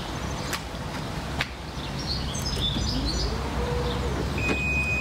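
Skoda Kodiaq's power tailgate working: a motor whine rises in pitch about three seconds in and then holds, with two sharp clicks in the first second and a half and a short high beep near the end. The tailgate is meeting hands held against its edge, a test of how it reacts to an obstacle. Birds chirp in the background.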